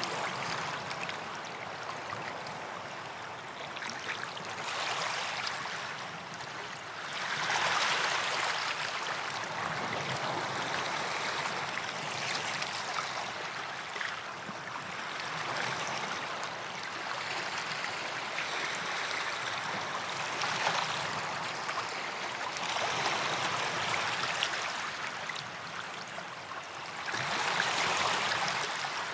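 Small waves washing onto a sand beach, the surf swelling and fading again every few seconds.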